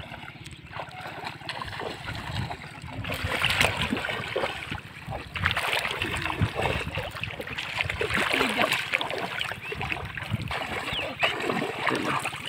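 Water splashing and sloshing as a bamboo-framed push net is shoved through shallow floodwater by a person wading, irregular and getting louder from about three seconds in.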